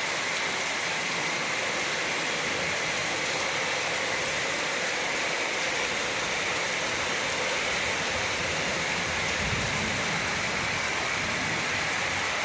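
Steady rainfall: an even, unbroken hiss of rain with no lull.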